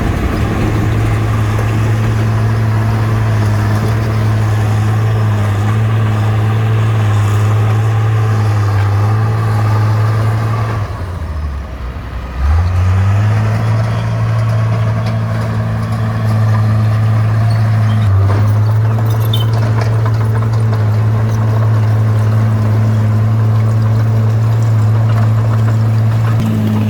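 Bulldozer's diesel engine running steadily. About eleven seconds in, its note sinks lower and quieter for a second or two, then climbs back up to speed; there is a brief hitch near eighteen seconds.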